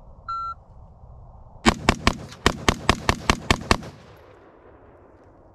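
Shot-timer beep, then a budget AR-15 rifle fired rapidly in semi-auto, about ten shots in roughly two seconds, with echo trailing off after the last shot.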